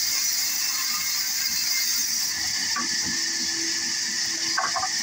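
Sawmill band saw running and ripping a wooden plank lengthwise, a steady high hiss with a faint hum underneath.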